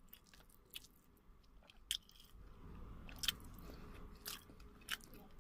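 Quiet eating: faint chewing and scattered sharp mouth clicks, with fingers gathering chicken biryani rice on a plate.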